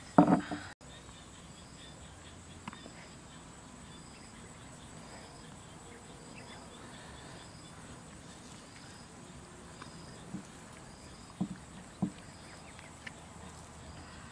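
A pestle strikes a stone mortar in a quick loud burst at the very start. After that, steady outdoor background with an insect chirping faintly about once a second, and a few soft taps near the end as hands work seasoning into the fish.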